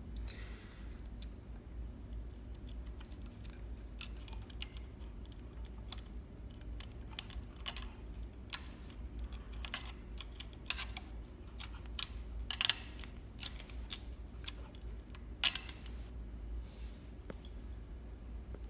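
Scattered light clicks and taps of a wire threader and small parts being handled while threading a Juki MO-6700DA serger's looper path, over a faint steady low hum. A couple of sharper clicks come about two-thirds of the way in.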